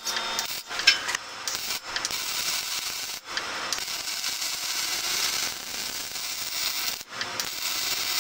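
MIG welding arc crackling and sizzling as a bead is run, welding a steel end-cap plate into the end of a square steel tube. The arc stops and restarts briefly a few times.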